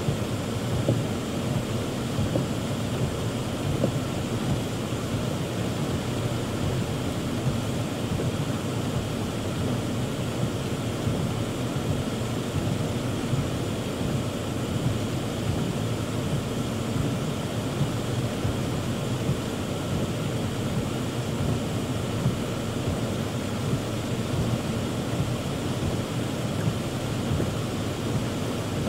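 Heavy rain beating on a car's roof and windshield, heard from inside the cabin as a steady, dense patter.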